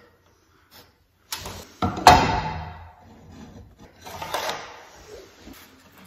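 Painted 2x10 board being handled on top of other boards: a sharp wood knock about two seconds in, then softer scraping of board on board.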